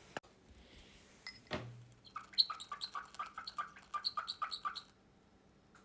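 Cockatiel chirping in a quick run of short, repeated notes, about five a second, for nearly three seconds starting about two seconds in.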